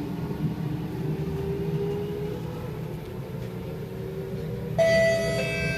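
Kawasaki–Nippon Sharyo C751B train heard from inside while running: a steady rumble of wheels and running gear, with faint traction motor tones rising slightly in pitch. Near the end a sudden high ringing tone starts and holds.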